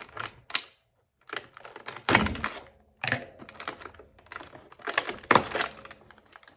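Fingers picking, pushing and tearing at a cardboard advent calendar door: a run of irregular clicks and taps with louder cracking tears about two seconds in and again about five seconds in.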